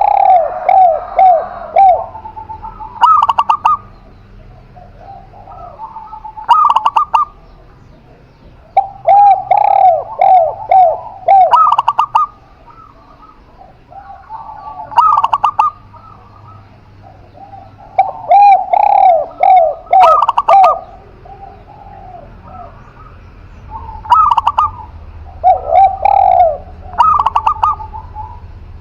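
Spotted dove and zebra dove cooing in turn. Phrases come every few seconds, some as quick runs of five or six short coos, with quieter pauses between them.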